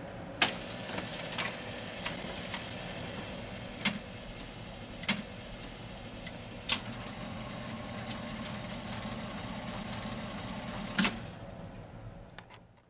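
Rowe/AMI MM-5 jukebox record-changer mechanism running through its record-return cycle, lifting the disc off the turntable and returning it to the carousel magazine. A steady mechanical whir is broken by several sharp clacks at irregular intervals, the loudest about half a second in. The sound fades away near the end.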